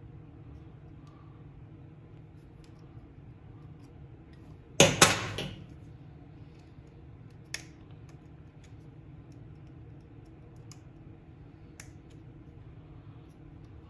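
Pliers and a small spring hose clamp being worked on a hose at a small engine's carburetor: faint scattered clicks, with a loud short metallic clatter about five seconds in and a single sharper click a couple of seconds later, over a low steady hum.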